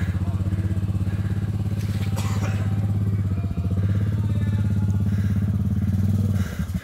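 Suzuki King Quad 750's single-cylinder four-stroke engine running steadily under load as the ATV wades through deep water, dipping briefly in the middle and falling back to a slower, pulsing beat near the end.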